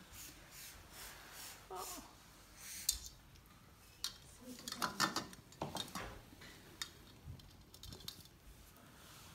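Scattered light clicks and taps, with a couple of brief voices about two and five seconds in.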